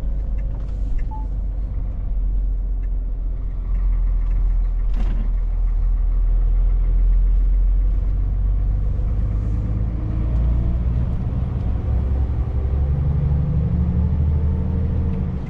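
Scania V8 truck engine and road noise heard from inside the cab, a steady low rumble while driving. In the last few seconds the engine note climbs as it pulls harder. One short click about five seconds in.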